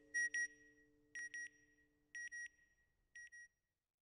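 Electronic satellite-beacon beeps: a pair of short, high beeps about once a second, four pairs in all, each fainter than the last. A low held music chord dies away in the first second and a half.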